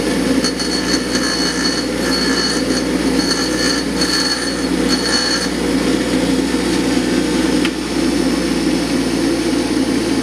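Bench grinder motor running with a steady hum while the metal end cap of a stock GM fuel injector is pressed against the wheel in several short bursts of high-pitched grinding, which stop about five and a half seconds in, leaving the motor running on its own. The grinding is wearing through the injector's friction-welded atomization cap so that it can be pried off.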